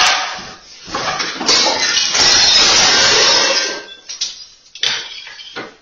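Clatter and rattle of tabletop party items being knocked off a table onto a hard floor, loudest in the first few seconds, then a few separate knocks near the end.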